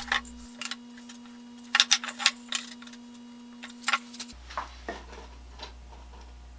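Irregular sharp clicks and light knocks of wooden moulding boards being handled and fitted around a wooden toolbox lid during a dry fit, loudest in a quick cluster about two seconds in. A faint steady hum stops a little past the middle.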